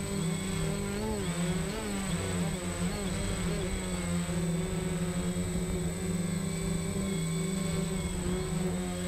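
DJI Phantom quadcopter hovering low, its propellers making a steady buzz whose pitch wavers for a few seconds early on as the motors adjust, over a thin steady high whine.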